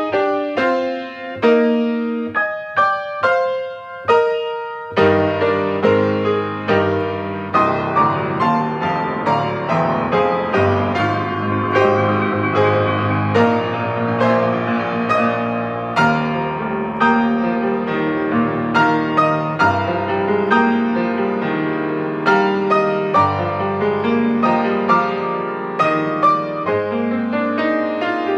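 Piano music: a few sparse single notes at first, then fuller chords with bass notes from about five seconds in.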